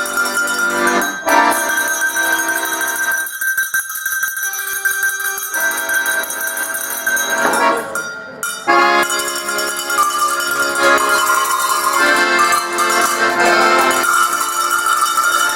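A set of tuned cowbells rung as a melody with accordion accompaniment. The lower accompaniment drops out for about two seconds around four seconds in, leaving the bell notes sounding, then comes back in.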